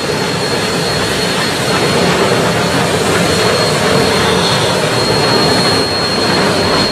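Several geared steam locomotives working hard together: a loud, dense, steady rush of exhaust steam and running noise, with a thin high steady tone through most of it.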